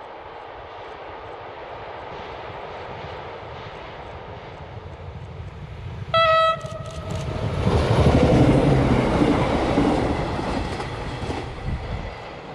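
VT628-class diesel multiple unit approaching with a slowly rising rumble and sounding one short horn blast about halfway through. It then passes close by, its wheels and engine loud for a few seconds before the sound fades away.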